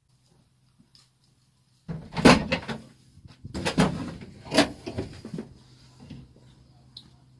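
A few loud clunks and knocks, about four over three seconds, like a door or metal being handled, over a faint steady hum.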